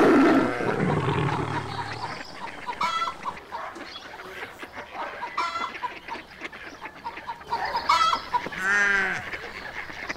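Tiger's low yawning growl, loudest at the start and fading over about two seconds. Then a few short fowl calls about every two and a half seconds, with a longer wavering call near the end.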